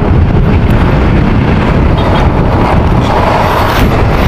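Loud, steady wind buffeting an action camera's microphone, mixed with vehicle road and engine rumble while on the move.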